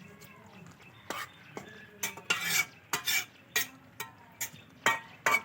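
A spatula scraping against a cooking pot as a leafy vegetable curry is stirred, in about ten short strokes that grow louder in the second half.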